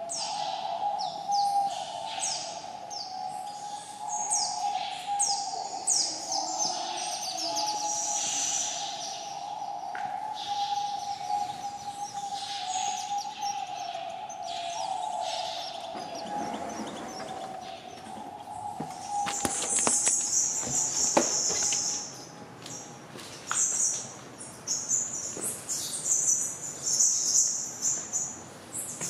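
Small birds chirping over and over with short, high, downward-sweeping chirps, and with longer high trills in the last third. A steady hum runs underneath and fades out a little past halfway.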